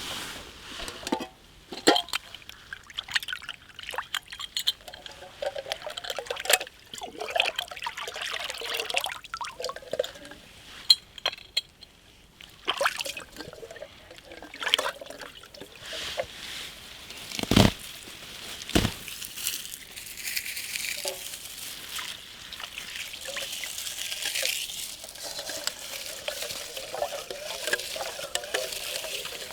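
Water pouring and trickling, with scattered clicks and a few sharp knocks of camp gear being handled.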